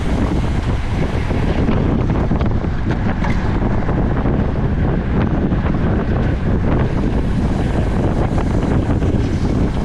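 Steady wind noise buffeting the microphone of a camera mounted on a racing bicycle at speed, with occasional faint clicks.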